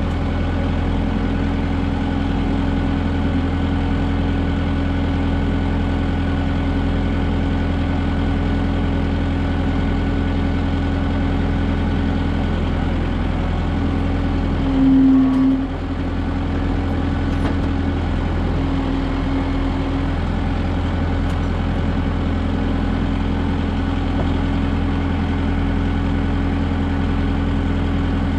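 Kubota M6060 tractor's diesel engine running steadily while working the LW-6 backhoe digging a ditch, with one brief swell in loudness about halfway through as the engine takes on load, then settling back.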